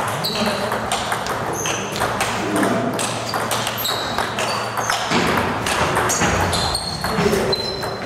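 Table tennis balls clicking off rackets and tables in several rallies at once, sharp irregular hits coming several times a second.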